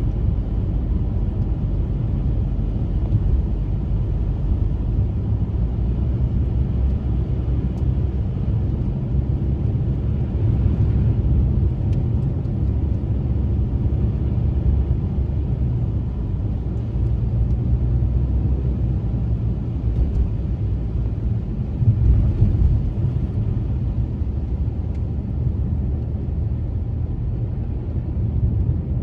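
Car driving on snowy streets: a steady low rumble of road and engine noise, briefly louder about 22 seconds in.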